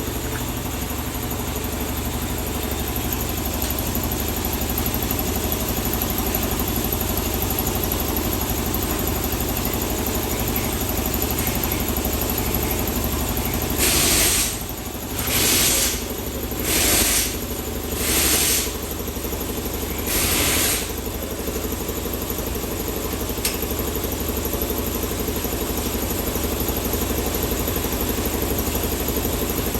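Five short hisses, about a second each, of a WD-40 aerosol can spraying the active-exhaust valve to lubricate it and stop its squeak. They come over a steady low hum.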